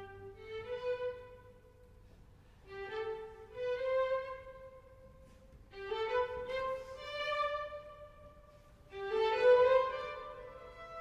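Background music: a solo violin playing a slow melody in four short phrases separated by brief pauses, each phrase stepping upward in pitch.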